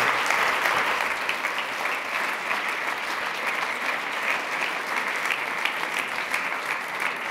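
Audience applauding steadily, a dense patter of many hands clapping that slowly dies down toward the end.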